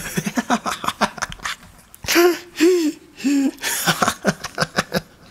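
A man laughing: quick breathy bursts, then three longer voiced 'ha's about two seconds in, then more quick bursts.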